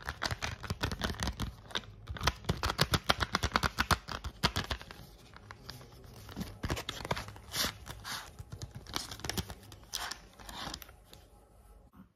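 A chocolate bar's wrapper being torn open and unfolded, with dense crinkling and crackling of foil and paper. The crackling thins out in the second half and stops near the end.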